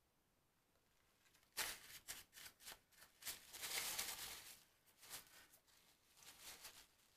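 Rustling and scuffing handling noises, a quick run of short scrapes starting about a second and a half in and densest a couple of seconds later, as the painter's hand works with his materials off the canvas.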